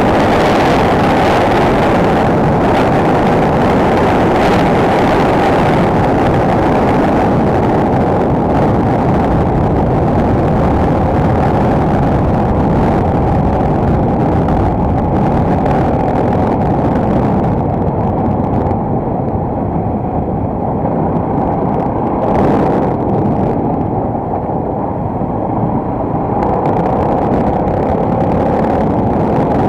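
Single-cylinder four-stroke enduro motorcycle engine running steadily under way, mixed with wind buffeting the action camera's microphone.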